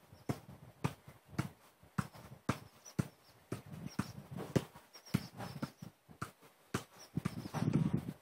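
Football being juggled on the feet: a dull thud each time the foot strikes the ball, in a steady rhythm of about two touches a second.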